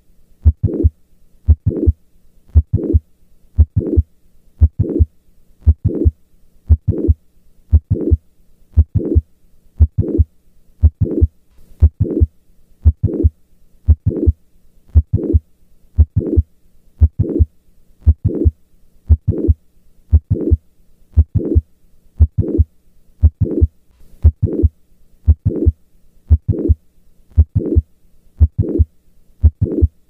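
Heart sounds of mitral valve prolapse heard through a stethoscope at the cardiac apex. A steady, regular heartbeat of about one beat a second with a heart murmur.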